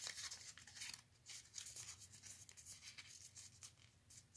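Faint, irregular rustling and creasing of a sheet of paper being folded by hand into an origami shape.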